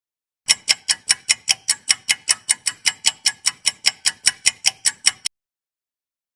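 Clock-like ticking sound effect, quick and even at about five ticks a second, starting half a second in and cutting off suddenly after about five seconds.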